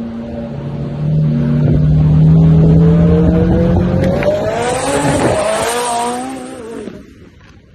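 McLaren 720S twin-turbo V8 accelerating, its engine note climbing steadily in pitch for several seconds as the car passes, then fading as it drives away near the end.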